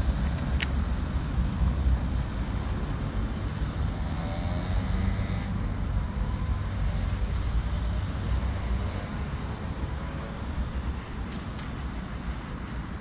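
Wind rumbling on the action-camera microphone, a steady low rumble that rises and falls unevenly, with one sharp click about half a second in.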